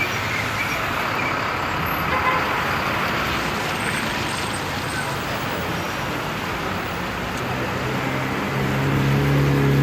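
Rush-hour city street traffic: a steady wash of engines and tyres. A deep engine hum swells louder near the end.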